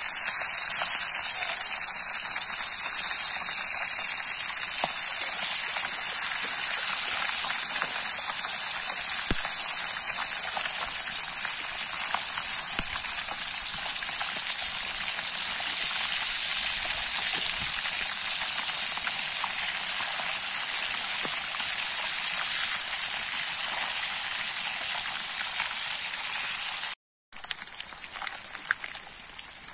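Fish pieces deep-frying in hot lard in a skillet over a wood fire: a steady sizzle with many small crackles. It cuts out for a moment near the end and comes back quieter.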